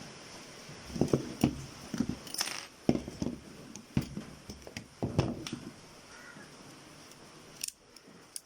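Burned micro SD card being broken apart by hand with a tool: a run of sharp snaps, cracks and clicks for about four seconds, then a couple of small clicks near the end.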